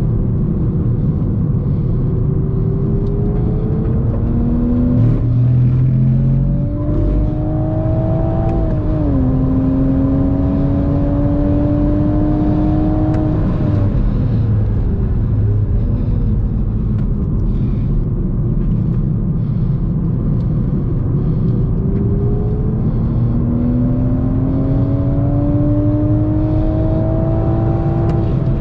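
Manual Toyota GR Supra's turbocharged inline-six, heard from inside the cabin, pulling hard on track. The engine note climbs, dips at a gear change about nine seconds in, and climbs again. It falls away under braking from about fourteen seconds, then climbs once more in the last third, over a steady road rumble.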